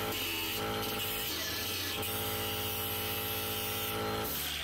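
Wire wheel on a power tool running steadily, scrubbing rust off the end of an exhaust pipe to clean it up so that it fits further into the muffler. The motor drops off near the end.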